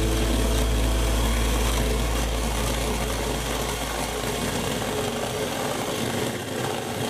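Electric hand mixer running steadily, its twin wire beaters whisking whipped cream and condensed milk in a glass bowl.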